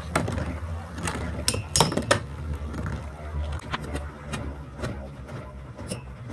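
Two metal-wheeled Beyblade spinning tops whirring around a plastic stadium floor, with sharp clacks as they collide. The hardest clacks come about two seconds in, and the whirring slowly fades.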